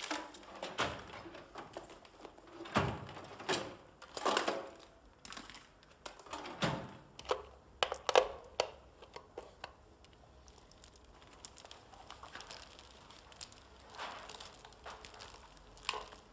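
Scattered knocks, clicks and rustles in a small room, several in the first half and only a few later.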